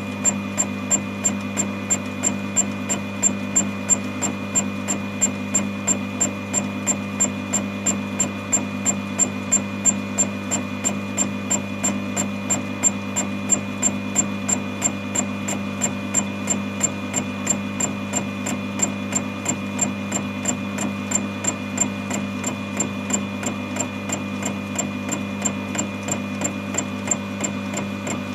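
Home-made fly-cutter on a small Proxxon mill taking a facing cut across a metal plate: a regular tick a few times a second as the single tool enters the cut each revolution, over the steady hum of the mill's motor and spindle.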